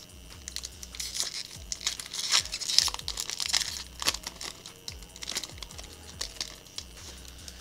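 Foil wrapper of a Magic: The Gathering booster pack being torn open and crinkled by hand: a run of crackling rustles, loudest about two and a half seconds in, with a sharp crack about four seconds in.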